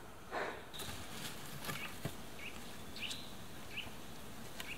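Quiet forest background with a few short, high bird chirps, a soft brief noise near the start, and a few light clicks scattered through.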